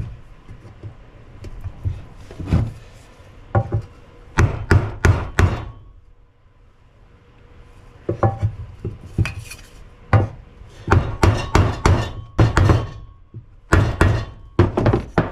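Claw hammer striking a wooden block held over a new timing cover seal, driving the seal into its bore in the Pontiac 350 timing cover. The blows are sharp wooden knocks in quick runs, with a short pause near the middle.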